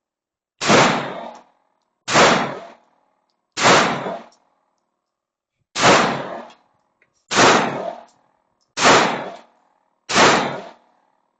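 Airsoft shots clanging off steel targets, seven separate metallic hits about every one and a half seconds, each ringing briefly.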